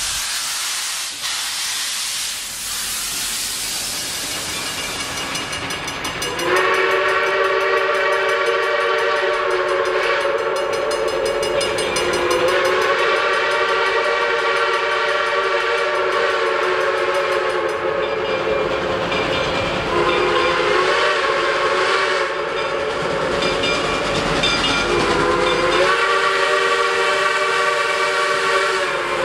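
Steam locomotive chime whistle on Reading and Northern 4-6-2 Pacific No. 425, blown in long drawn-out blasts as the engine approaches: a chord of several notes that slides up into pitch about six seconds in, wavers and dips around twenty seconds in, and sounds strongly again near the end. Before the whistle there is a steady hiss.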